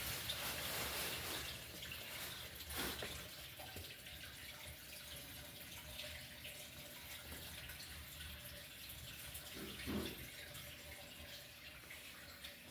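Water running and trickling steadily, as from a tank's filter outflow, with a brief louder sound about ten seconds in.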